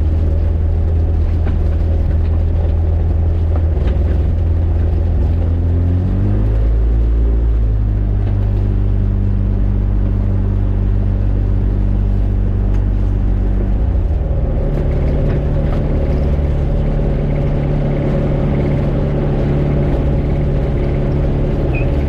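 Rotax 582 two-stroke twin engine and propeller of an X'Air microlight running steadily, loud. The engine note shifts to a new pitch twice, about six and fourteen seconds in.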